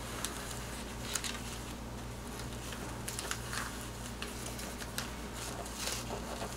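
A baseball cap and its stabilizer sticker rustling and crinkling as hands press and smooth it flat into an embroidery hoop, in short scattered scrapes over a steady low hum.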